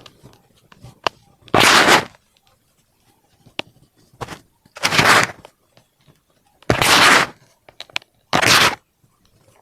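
Compressed baking soda being crushed: four loud crunches, each about half a second long, with faint crackles and ticks of crumbling powder between them.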